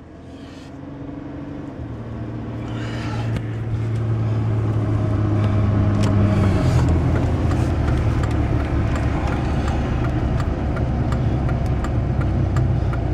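Vehicle engine and road noise, growing louder over the first few seconds as it speeds up onto the highway. The engine's tone shifts about six and a half seconds in, then runs steadily.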